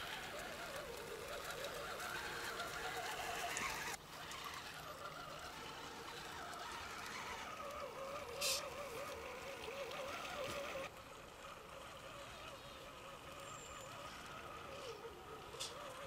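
Electric motor and gear whine of an RC scale 4x4 crawler truck driving through deep mud, the pitch rising and falling with the throttle over the squelch and slosh of mud and water. A short burst of noise comes just past halfway.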